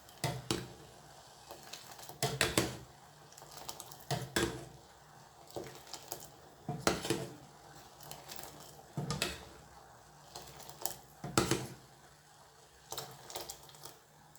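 Kitchenware clattering: a utensil knocking against a pot or cup about a dozen times, a knock or two every couple of seconds.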